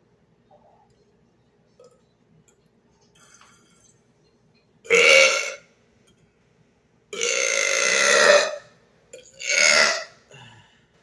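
A man's deliberate loud belches, three in a row: a short one about five seconds in, a long drawn-out one of about a second and a half, then another short one.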